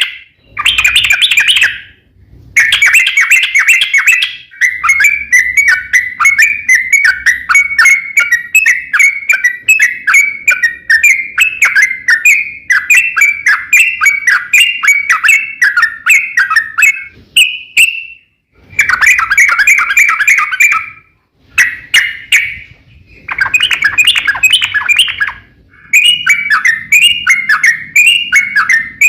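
Yellow-vented bulbul singing: loud, rapid chattering runs of repeated chirping notes, one lasting over ten seconds, broken by short pauses.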